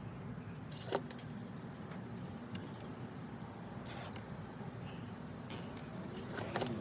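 Nylon cable ties being fastened by hand: a few sharp clicks and scratchy rustles, one about a second in and another about four seconds in, over a steady low hum.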